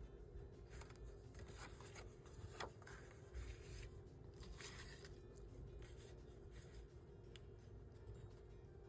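Faint, scattered rustles and light ticks of paper sheets being handled and shifted.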